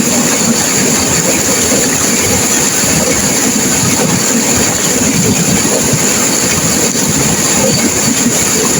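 Turbulent river water rushing and crashing, a loud, steady, unbroken rush.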